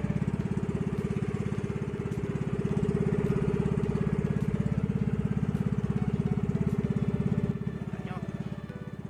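Small outrigger boat's engine running steadily with a fast, even chug; it turns quieter about seven and a half seconds in.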